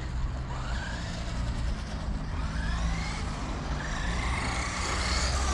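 Brushed 550-size electric motor of a WLtoys 12429 1/12 RC buggy whining, its pitch rising and falling several times with the throttle, over a low steady rumble.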